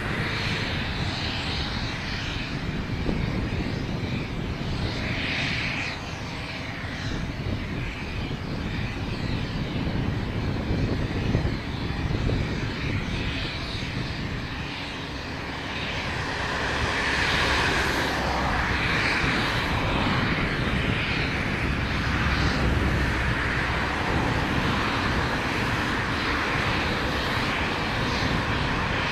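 Steady aircraft turbine engine noise, a low rumble with a hiss, growing somewhat louder about sixteen seconds in.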